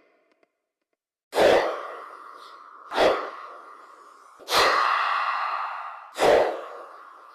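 Horror sound effect repeated four times after about a second of silence: each is a sudden hit followed by a sustained, slowly fading noise, about one and a half seconds apart.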